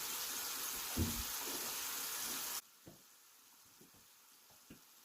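Water spraying steadily in a shower, with a knock about a second in; the spray stops abruptly partway through, leaving a few faint clicks and taps.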